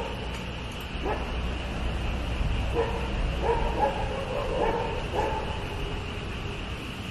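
Several dogs barking together in a group, a string of short barks and longer drawn-out yelps about a second apart.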